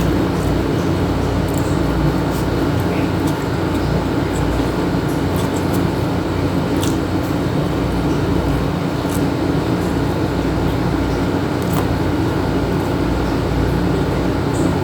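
Steady mechanical drone with a strong low hum, unbroken throughout, with faint scattered clicks on top.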